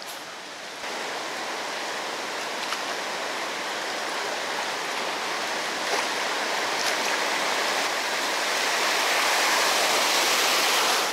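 Rushing water of a small river waterfall, a steady noise that steps up about a second in and grows gradually louder toward the end.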